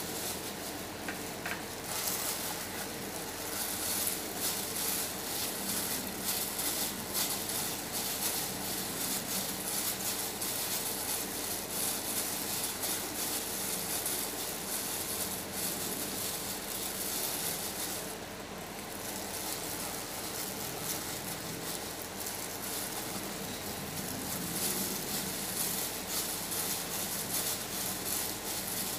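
Thin plastic food-prep glove crinkling and rustling as a hand scoops and shapes mashed potato mixture into patties, easing off briefly a little past halfway, over a faint steady hum.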